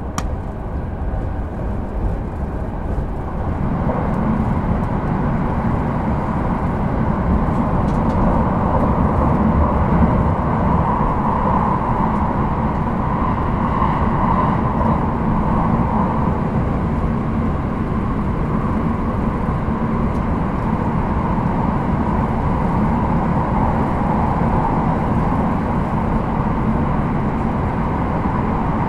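Cabin running noise of an electric rapid train at speed: a steady rumble of wheels on rail. It grows louder about four seconds in, then holds even.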